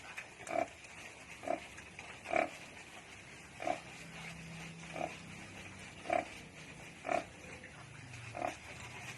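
Native pig grunting: eight short grunts at a fairly even pace of about one a second.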